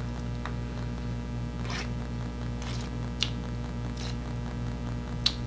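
A handful of short scrapes and clicks from a metal fork in an aluminium foil takeout pan, along with eating sounds, over a steady low hum.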